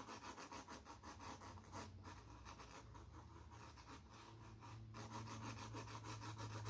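Graphite pencil shading lightly on paper: a faint, rapid run of fine back-and-forth scratching strokes over a steady low hum.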